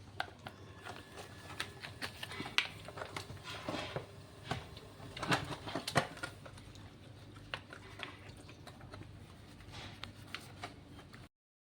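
Irregular light clicks and knocks, as of small hard parts and tools being handled, over a faint steady background hum. The sound stops abruptly shortly before the end.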